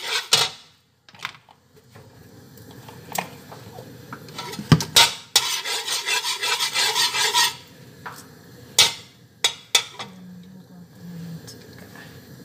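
Metal spatula scraping around the inside of a metal wok, spreading a pool of cooking oil, with sharp clinks of the spatula against the pan. The longest stretch of scraping lasts about two seconds, in the middle.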